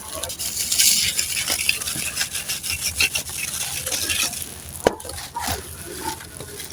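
Dry, gritty sand cement crumbling and being crushed, a dense crunching crackle for the first few seconds, thinning to scattered crackles, with one sharp snap about five seconds in.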